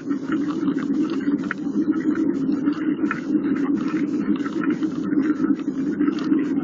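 Steady rumble with constant rattling from the vehicle carrying the camera as it rolls forward over an asphalt path.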